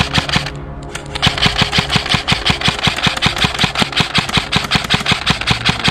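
Airsoft rifle firing in rapid strings: a short burst, a pause of about half a second, then a long steady string of shots at about six or seven a second.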